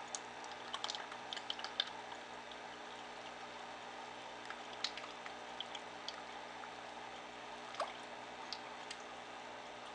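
Aquarium filter running, its water trickling and pouring steadily into the goldfish tank. Small sharp pops and splashes at the surface come in a cluster about a second in and singly around five and eight seconds, as the goldfish feed there.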